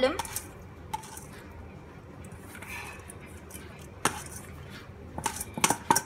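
Stainless steel bowl clinking against a glass bowl as soaked basmati rice is tipped and scraped out of it: a sharp clink about four seconds in and a quick cluster of clinks near the end.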